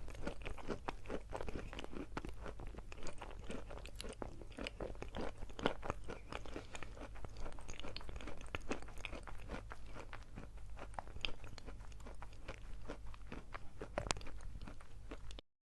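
Dry chalk being chewed close to the microphone: dense, continuous, irregular crunching that cuts off suddenly near the end.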